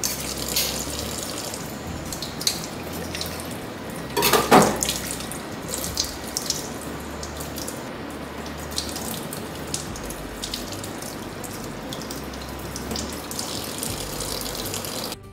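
Tap water running into a stainless steel sink and splashing over a shucked rock oyster held under it, with scattered small clicks and splashes and a brief louder burst about four and a half seconds in. The running water cuts off suddenly near the end.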